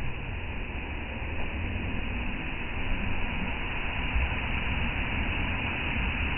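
Sea surf rumbling steadily on a beach, waves breaking in a continuous wash of deep rumble and hiss.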